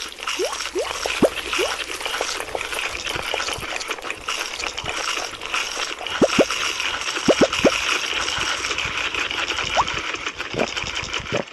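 Liquid bubbling and splashing, with many quick rising plops throughout. It starts and stops abruptly.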